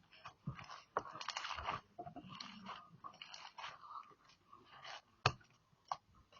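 Slime being squeezed and poked by hand: irregular crunching and squishing crackles with sharp pops, the loudest pop about five seconds in.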